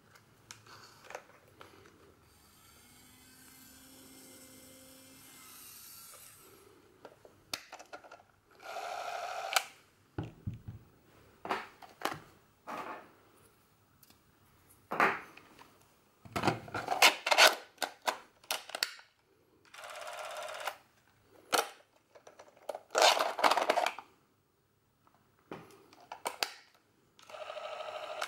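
Handling sounds from a Bauer C 1 M Super 8 camera: a string of short scrapes and rasps with sharp clicks between them, as its parts and compartment are worked by hand.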